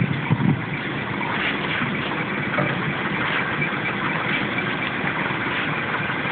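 Scania truck's diesel engine running slowly and steadily while the truck reverses with its drawbar trailer.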